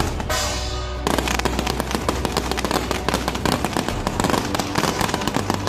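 Fireworks going off overhead, aerial shells bursting with a dense, rapid run of crackling pops from about a second in. Music plays underneath.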